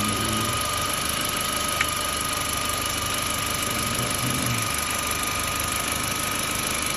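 Car engine idling steadily, with a steady high whine over it and a single sharp click about two seconds in.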